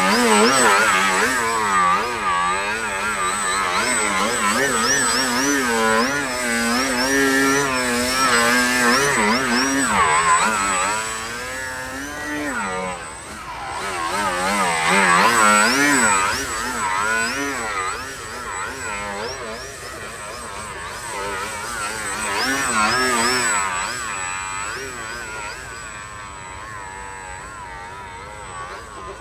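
Radio-controlled Yak 55M aerobatic model plane's engine and propeller, its pitch wavering rapidly up and down with throttle as it hovers and manoeuvres low. It swells and dips in loudness as the plane passes closer and farther, and fades over the last few seconds as it flies off.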